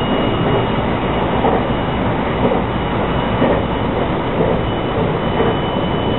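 JR West 223 series 2500 subseries electric train running at speed, heard from the front of the train: steady rolling noise with soft knocks about once a second and a faint steady high whine.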